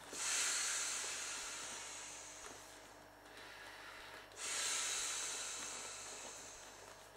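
Two long breaths blown by mouth into the valve of an inflatable clownfish pool toy. Each is a hissing rush of air that starts sharply and fades over about three seconds, with a quieter pause between for the next inhale.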